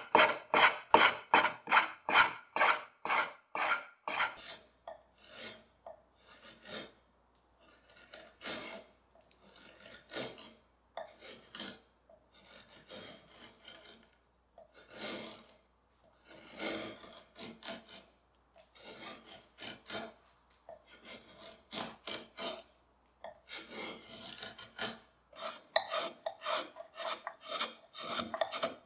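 Hand carving tools cutting into walnut: quick scraping strokes, about four a second at first, then slower, separate strokes with short pauses, and quick again near the end.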